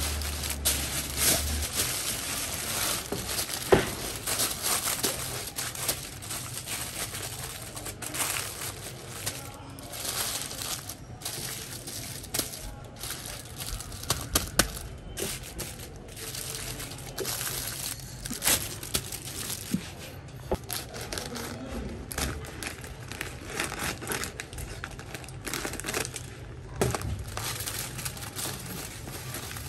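Aluminium foil crinkling and rustling as hands fold, crimp and press it into a tight wrap, with many irregular crackles. Near the end, coarse sea salt is poured from a bag onto a sheet of foil.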